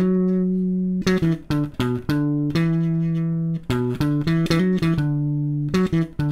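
Fender Jazz Bass played fingerstyle over the end of the neck: a solo melody line of notes held for about a second, broken by quick runs of short notes. Plucking at the neck gives the bright, clear solo tone that stands in for slapping.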